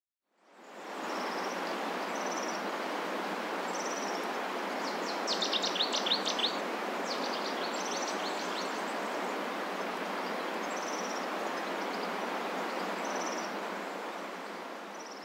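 Outdoor ambience: a steady rushing hiss that fades in at the start, with small birds chirping over it. A quick run of sharp, downward-sweeping chirps about five to six and a half seconds in is the loudest part.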